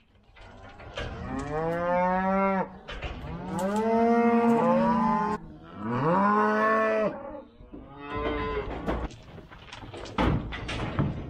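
Black Angus cattle mooing: three long calls one after another, each rising in pitch and then held, followed by a scatter of short knocks and rattles near the end.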